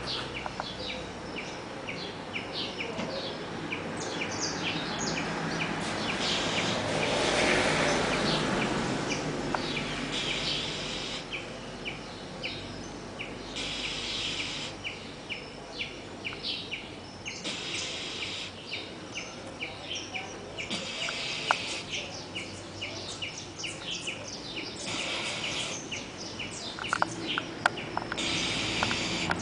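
A sleeping pet snoring, with a hissing breath about every three to four seconds. Birds chirp throughout.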